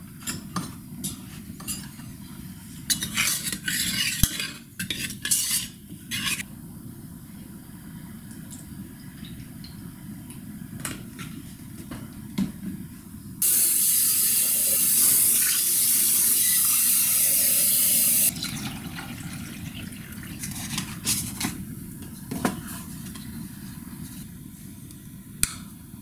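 Breakfast kitchen sounds: a spoon and dishes clink and clatter on a ceramic cereal bowl, and a steady rush of pouring liquid runs for about five seconds in the middle. Several sharp clicks and knocks come near the end.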